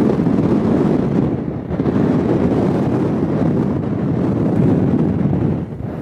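Wind buffeting the camera's microphone: a loud, low, rushing rumble that swells and eases in gusts.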